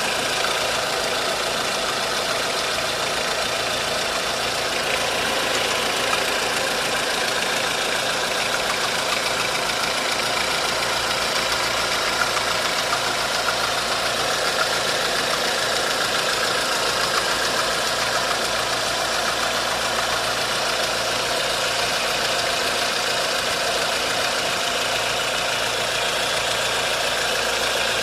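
1.4 16-valve car engine idling steadily with a persistent mechanical noise that is still there with the tensioner and chain checked and the accessory belt removed.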